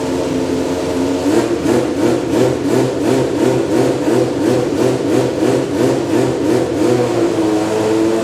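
Historic Group C race car engine running loudly, first at a steady pitch. Just over a second in, the sound turns into a regular pulsing of about three beats a second. It settles back to a steady pitch near the end.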